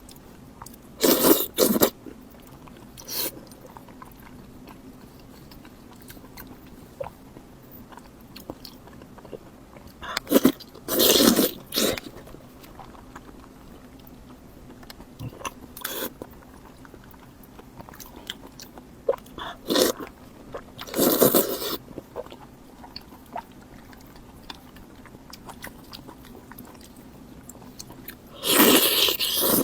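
Close-miked eating: loud, crisp crunching bites come every few seconds, about six times, with quieter chewing in between.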